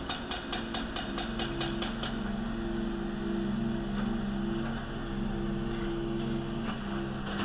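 Excavator working demolition: rapid, even hammering of about six blows a second for the first two seconds, then the diesel engine and hydraulics running as a steady drone.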